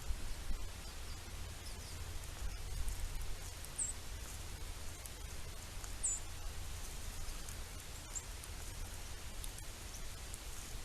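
Outdoor feeder ambience: a steady low rumble with a faint crackling hiss, and two short, very high bird chirps about four and six seconds in.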